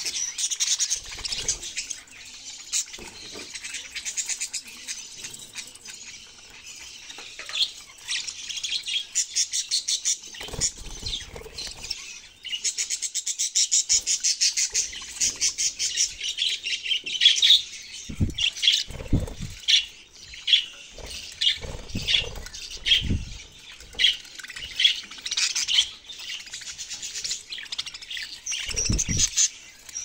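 A flock of budgerigars chattering in a dense, continuous stream of high chirps and warbles, with a fast run of rapid chirps near the middle. A few short low thumps are mixed in.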